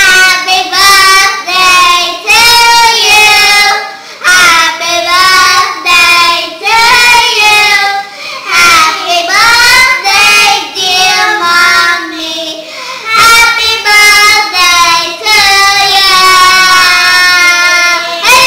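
Two young girls singing loudly together, their high children's voices in long held notes.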